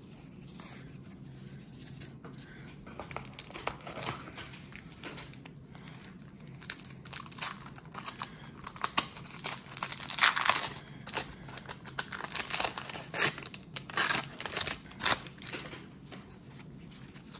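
A baseball card pack's wax-paper wrapper being torn open and crinkled: a run of irregular crackles and rips that starts a few seconds in and is busiest in the second half.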